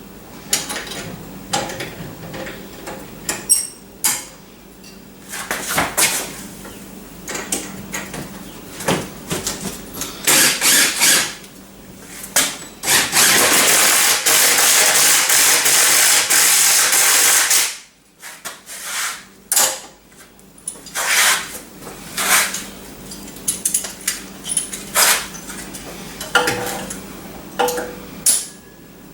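Knocks and clanks of metal tools and parts being handled, with a loud steady rushing noise lasting about five seconds near the middle that cuts off suddenly.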